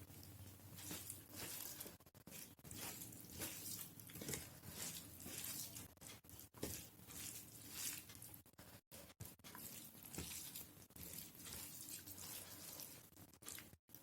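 Wet eating sounds: chewing and mouth smacks on rice and dal, many short irregular clicks.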